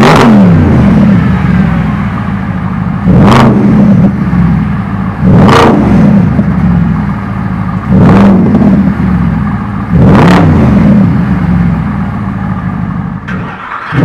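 Mercedes-Benz SLS 63 AMG's 6.2-litre V8 through a MEC Design aftermarket exhaust, revved while stationary: five sharp throttle blips about every two to three seconds, the engine note falling back to idle after each.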